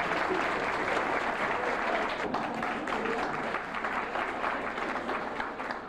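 Audience applauding: many people clapping together.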